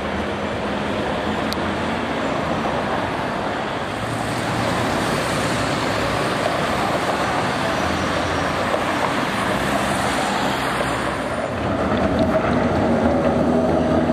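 Steady rumbling vehicle noise with a low hum underneath, growing a little louder near the end.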